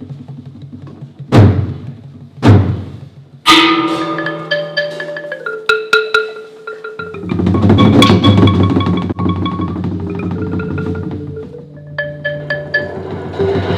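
Percussion music: two sharp drum strikes, then ringing mallet-percussion tones, with a fuller ensemble sound coming in about halfway through.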